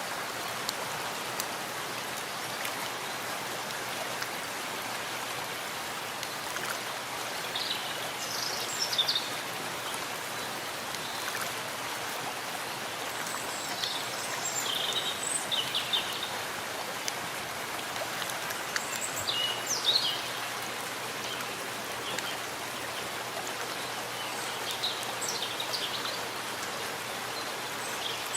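Steady rain falling in a forest. A few short, high bird chirps come through the rain several times.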